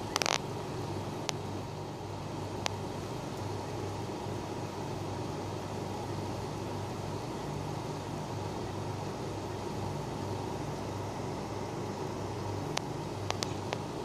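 Steady hiss of rain outdoors with a low hum beneath it, broken by a few sharp ticks: one just after the start, two more in the first three seconds, and a quick run of them near the end.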